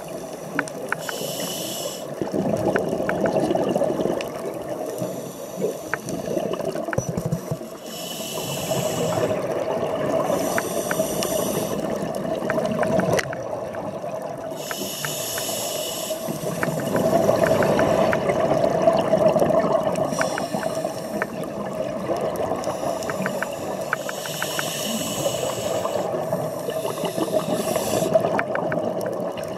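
Scuba breathing heard underwater: each inhalation is a short hiss through a regulator's demand valve, followed by the bubbling gurgle of exhaled air, in a slow, uneven cycle. Faint scattered clicks run underneath.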